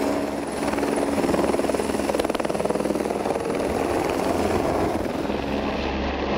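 Light helicopter flying low overhead on a supply flight with a cargo long line, its rotor chopping fast and steadily with the turbine running.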